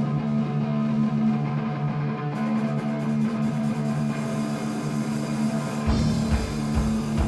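Punk rock band playing live: sustained electric guitar chords, with cymbals joining about two seconds in and a steady low drum beat coming in near the end.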